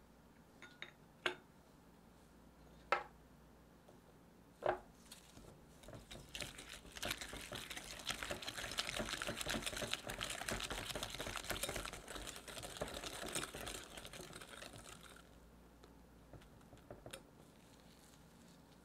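Wire balloon whisk beating an egg into creamed butter and sugar in a glass bowl: fast, steady clicking and scraping of the wires against the glass for about nine seconds. This is preceded by three sharp taps, one every couple of seconds.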